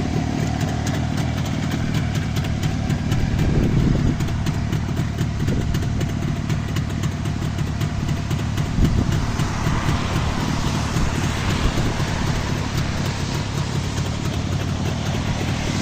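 Jawa 634 motorcycle's two-stroke twin engine running steadily at idle, smooth and even, with no odd knocks or rattles standing out.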